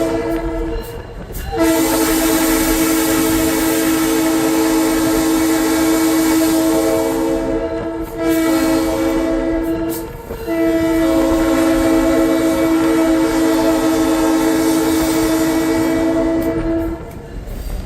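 EMD SD9M locomotive's air horn sounding a multi-note chord, heard from inside the cab: the tail of one blast, then long, short, long, the grade-crossing signal. A low engine and rail rumble runs underneath.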